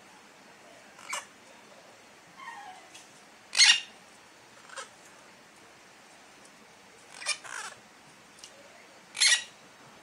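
Parakeets giving short, harsh screeches, about five of them, the loudest a little under four seconds in and two in quick succession past the seven-second mark, with a fainter falling squawk between.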